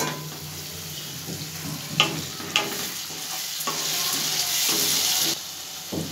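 Chicken and spice masala frying and sizzling in a kadai while it is stirred with a spatula, which knocks sharply against the pan twice. The sizzle grows louder past the middle and then drops back near the end.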